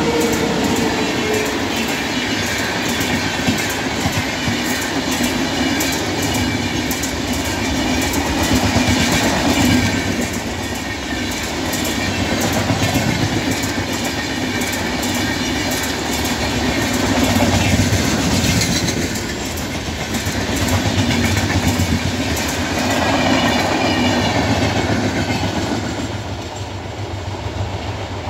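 An Indian Railways WAP-7 electric locomotive and its passenger coaches pass close at speed. There is a steady rumble of wheels on rail with rapid clickety-clack over the rail joints, swelling and fading as each coach goes by. The sound eases off near the end as the train moves away.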